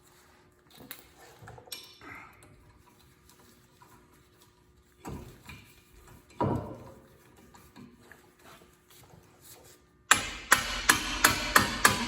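Quiet handling of tools and brake parts with scattered light clicks, then near the end a rapid run of sharp metal-on-metal strikes, about four a second, like hammer blows on steel.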